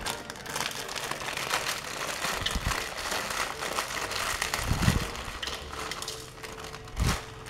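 Plastic instant-noodle wrapper crinkling and rustling as it is torn open and handled, with crackly clicks throughout. Dull thumps come three times, the loudest about five and seven seconds in.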